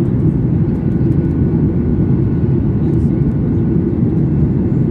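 Steady low rumble of a Boeing 737's jet engines and rushing air, heard inside the passenger cabin during takeoff.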